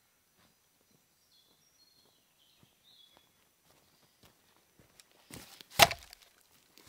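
A few faint bird chirps, then a brief scuffle and one sharp, loud knock or crack about six seconds in.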